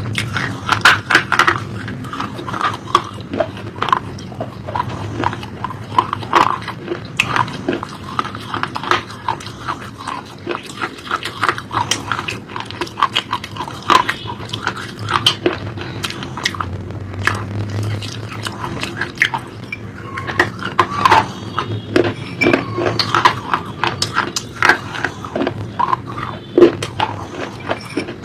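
Close-up chewing of crunchy food: a steady run of irregular sharp crunches from bites and chewing, with mouth sounds and swallowing.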